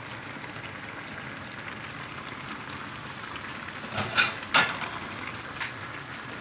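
Escabeche fish and vegetables simmering in a pan, making a steady, even sizzle, with a few sharp clicks about four seconds in.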